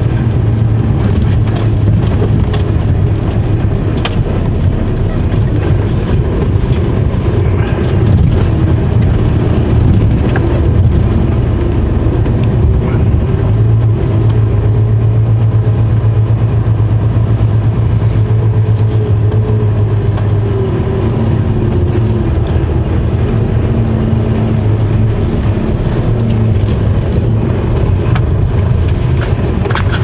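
Mercedes-Benz Actros truck's diesel engine running steadily at low speed as the truck rolls slowly, heard from inside the cab as a continuous low hum.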